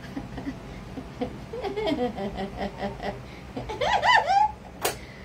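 A woman laughing: a run of short, rhythmic ha-ha pulses, then a higher giggle, with a single sharp click near the end.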